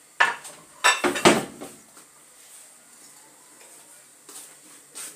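Clatter of kitchen utensils and dishes: several sharp clinks and knocks in the first second and a half, then a couple of lighter knocks near the end.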